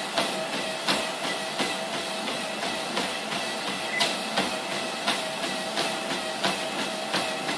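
NordicTrack C100 treadmill running with someone on it: a steady motor whine under a rhythmic knock about every 0.7 seconds, the noise the machine makes under load.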